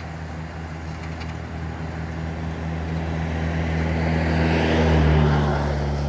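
Road traffic: a motor vehicle's engine drone that grows steadily louder as it approaches, loudest about five seconds in.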